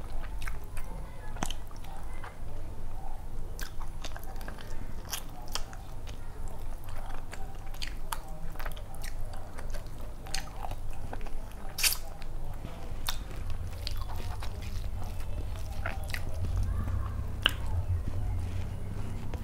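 Close-miked eating sounds: chewing and mouth-smacking on pulao rice eaten by hand, with many irregular sharp, wet mouth clicks.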